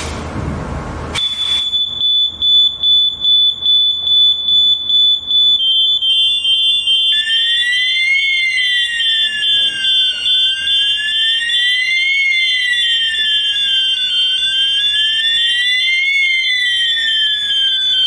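A short hiss of aerosol test smoke sprayed at a wireless battery smoke detector. The fire alarm system then goes into alarm: a steady high-pitched alarm tone, a second tone joining a few seconds later, then a siren that slowly rises and falls about every four seconds, from the wireless strobe sounder.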